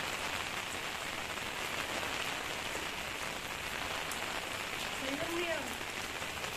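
Steady rain falling on a wet concrete rooftop.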